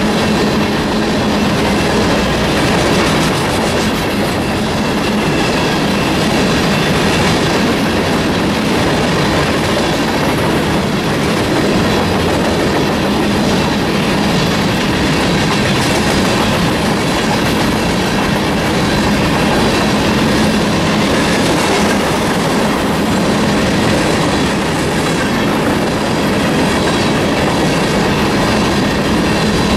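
CSX freight train's covered hopper cars rolling past close by, a loud steady rumble of wheels on rail.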